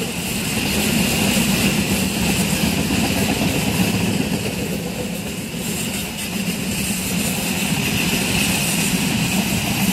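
Diesel locomotive of a passenger train running, a steady low engine drone with hiss above it.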